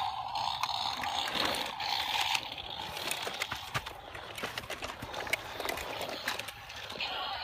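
A droning sound for the first two seconds or so, then light clicks, rattles and scrapes from plastic toy tractors and trucks being handled and rolled in dirt.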